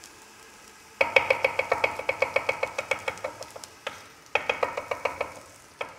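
Chef's knife rapidly chopping garlic on a wooden cutting board, about nine quick knocks a second with a brief ringing to each. The chopping comes in two runs, starting about a second in, with a single chop near the end.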